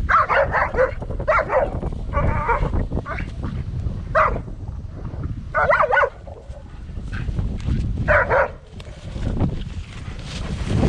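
A German shepherd dog barking in a series of short bursts, the last about eight seconds in.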